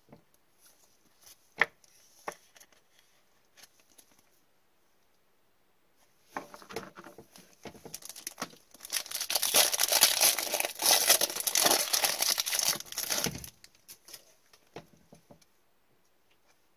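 A trading-card pack wrapper being torn open and crumpled, a crinkling, tearing sound that starts about six seconds in and is loudest for several seconds before it stops. A few small clicks from handling the cards come before and after it.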